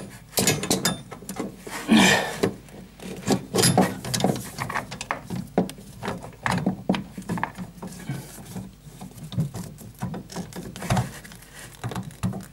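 A metal wrench clinking, knocking and scraping against the compression nut of a flexible hose and the copper pipe beside it, in an uneven run of clicks and rubs as it is fitted and worked to loosen the nut.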